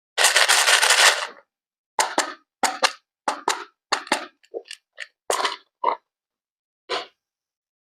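Water sounds from a doll's bath: a rush of water about a second long, then a string of short, sharp splashes with silent gaps between them.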